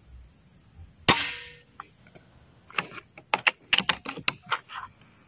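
A full-CNC Predator PCP air rifle fires once about a second in: a single sharp crack that dies away quickly. Then comes a quick run of light clicks and knocks.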